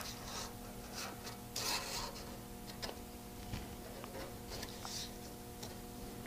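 Felt-tip marker drawing on scrap sheet steel: faint, short scratchy strokes as the corner of a cardstock template is traced, over a steady low hum.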